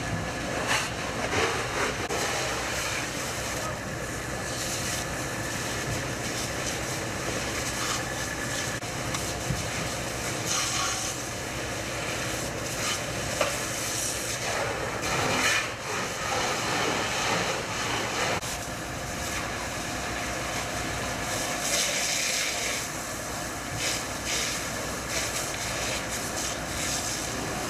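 Fire-scene noise around burning construction machinery: a steady hiss with irregular crackles and knocks.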